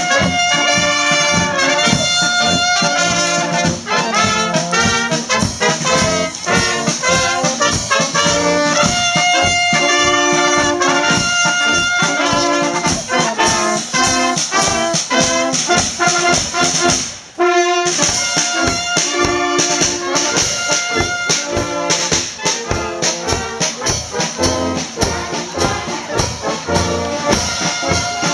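A marching brass band playing a march, trombones and trumpets over a bass drum beating a steady march beat, with a brief break about two-thirds of the way through before the playing resumes.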